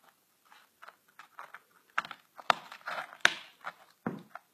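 Scattered clicks, taps and knocks of things being handled close to the microphone, sharpest around the middle, with a duller knock near the end.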